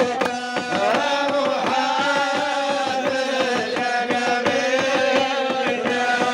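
A group of men chanting a Moroccan madih (religious praise song) together into microphones, over a steady rhythm of handclaps.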